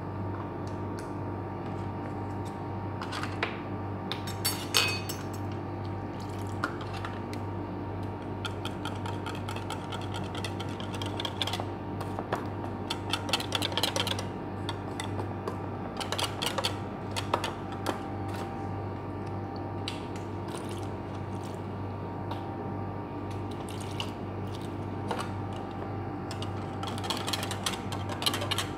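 Wire whisk beating a liquid cream, yogurt and coconut-milk mixture in a bowl, the wires clinking irregularly against the bowl over a steady low hum.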